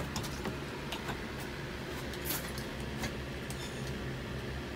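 Scattered light clicks and taps from an outboard carburetor and its fuel hose being handled while the fuel tank's primer bulb is pumped to fill the carburetor. A steady low hum runs underneath.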